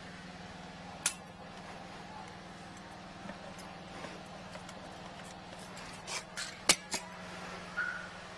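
Steady low machine hum with a few sharp clicks and knocks: one about a second in and a cluster between six and seven seconds, the loudest just before seven.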